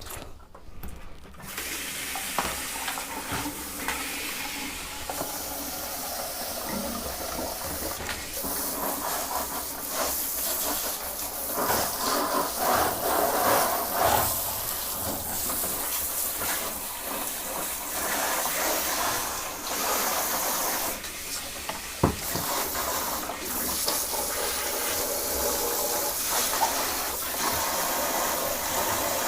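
Shower hose spraying hot water over a vintage sewing machine, the spray hissing and splashing with changing force as it is moved over the machine and water runs off it, with a sharp knock about two-thirds of the way through.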